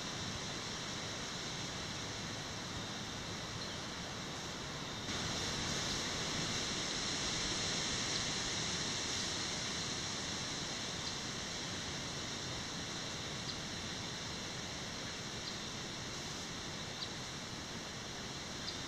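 Steady outdoor ambient hiss with a few steady high-pitched bands; it gets a little louder about five seconds in, and a few faint soft ticks sound later on.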